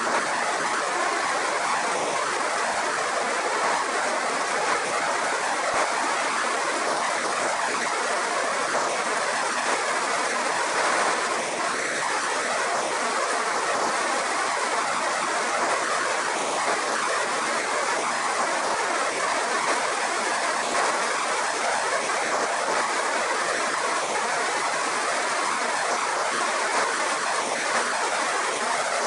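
Kadıoğlu Nutmec 180E green-walnut peeling machine running with a load of walnuts, a steady, unbroken rushing noise of nuts and water tumbling inside it as their green husks are stripped off.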